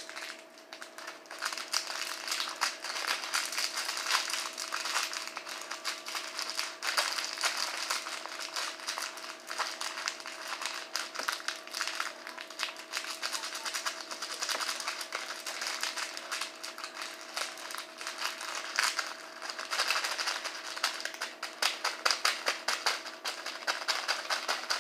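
Dense, irregular small clicks and rattling from hands working a batch of slime and small add-in decorations being put into it, over a steady low electrical hum.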